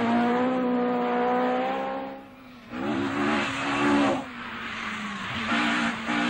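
Ford Escort Mk2 rally cars driven flat out on a tarmac stage. An engine is held at high revs for about two seconds, then drops off. Another car comes through with rising revs and tyre noise, and a high-revving engine returns near the end.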